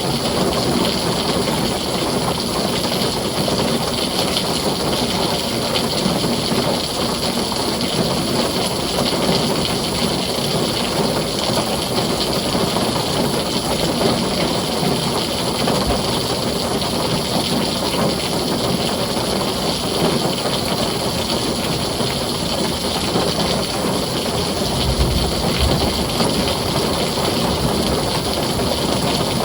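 Heavy rain drumming steadily on a tin roof, with a brief low rumble near the end.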